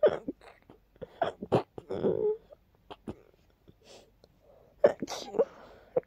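A person sneezing several times in quick succession, soft short sneezes with quieter breaths between, set off by household dust.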